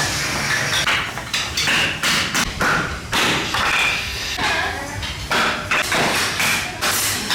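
A run of irregular knocks and taps, several a second, with some faint voices.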